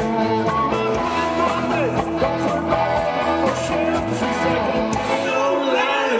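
Live rock band playing: electric guitar, bass guitar and drums, with a man singing.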